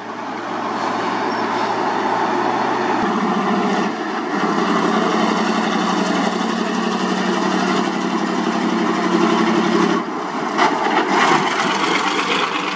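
Loaded heavy diesel dump trucks, Hyundai among them, running steadily as they drive past on a dirt haul road. The engine note shifts about three seconds in and again near ten seconds.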